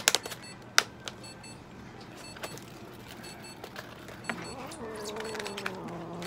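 A few sharp clicks near the start, then from about four and a half seconds a low, drawn-out yowl from a cat being held for treatment, wavering slightly in pitch.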